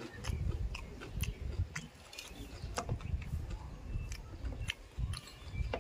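Eating sounds at close range: a person chewing a mouthful of rice and fish, with irregular small sharp clicks as fingers scrape and gather rice on a steel plate.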